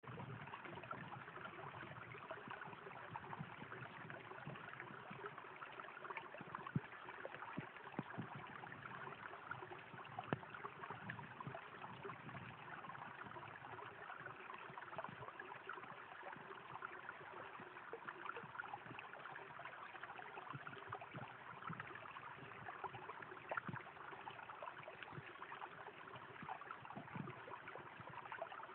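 Shallow forest brook running over stones: a steady, faint trickle full of small gurgles and splashes.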